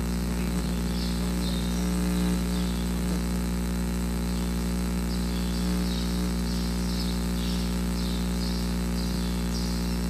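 A steady low machine-like hum, with short high-pitched chirps coming and going over it, more frequent in the second half.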